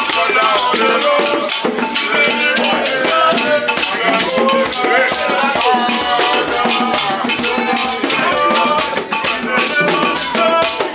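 Lively music: a shaker rattling in a fast, even beat, with voices singing melodic lines over it.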